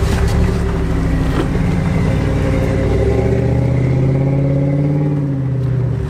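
Old Land Rover Defender's V8 engine running as it crawls on a rocky trail. Its pitch rises about halfway through and falls back near the end.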